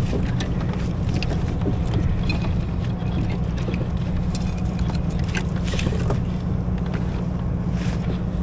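Steady wind rumble on the microphone, with scattered light clicks and knocks scattered through it.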